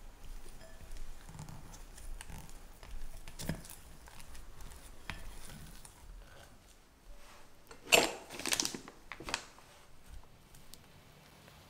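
A silicone spatula stirs and scrapes thick almond cream around a glass bowl with soft, squelching, sticky sounds. The cream is then scraped into a plastic piping bag, and the bag crinkles loudly a few times about eight to nine seconds in.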